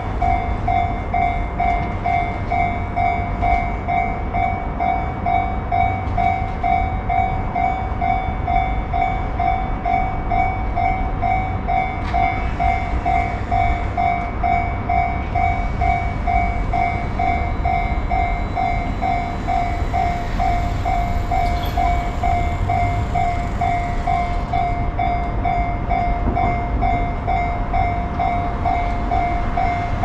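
Level crossing warning alarm sounding continuously: one pitched tone repeating in an even, rapid beat, over a steady low rumble.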